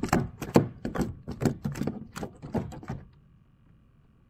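A quick, irregular series of knocks and taps, several a second, stopping about three seconds in.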